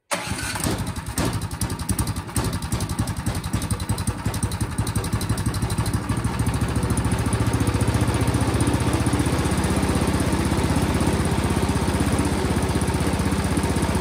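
Toro Power Max snowblower's single-cylinder OHV engine running after a shot of starting fluid, uneven at first and settling into a steady run after about six seconds. Firing on starting fluid points to a fuel-delivery fault in the carburetor.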